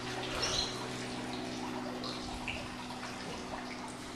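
Water splashing and dripping, with a few brief splashes, over a steady low hum.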